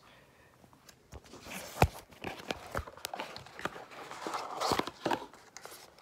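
Handling noise as a wooden-handled wrench multi-tool is taken out of its gift box: scattered sharp clicks and taps with rustling, busiest about four to five seconds in.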